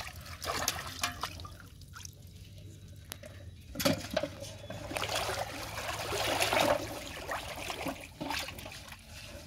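Shallow pond water splashing and trickling as a plastic bottle trap is lifted out and water runs off it, with a louder run of sloshing and pouring from about four to seven seconds in.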